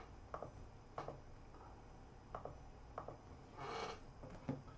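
Faint handling noise from plastic card holders: a few light, separate clicks as cased cards are set down and handled, with a brief rustle a little before the end.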